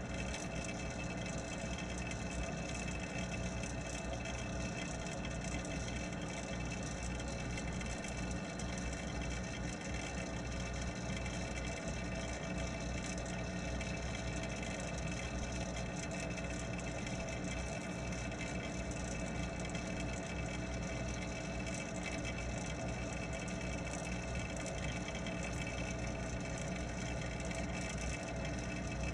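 Steady hum of the pond's water pump and filtration picked up underwater, a constant drone with several held tones over an even water hiss.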